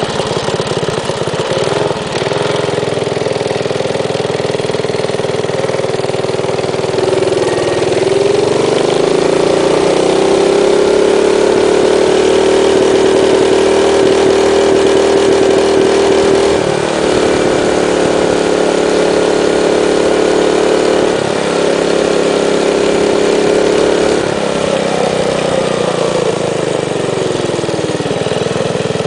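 Minibike's small engine running while riding, its pitch rising as it speeds up several seconds in, holding with a few sudden shifts, then falling as it slows near the end.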